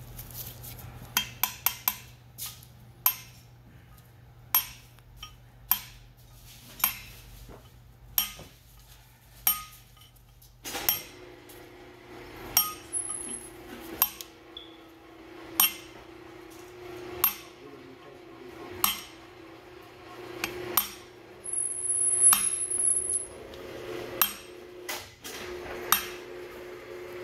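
Hammer striking a punch to drive the upper bearing holder into a Flygt 3152 pump's stator housing. Sharp metal-on-metal taps come quick and irregular at first, then settle to about one every second and a half.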